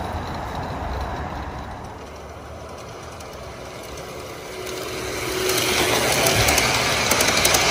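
G-scale model train running on outdoor garden track with its sound system switched off: the rolling of metal wheels on rail and the hum of the gear motors. The noise swells from about halfway as the diesel locomotive and its passenger cars pass close by, with rapid ticking from the wheels over the track.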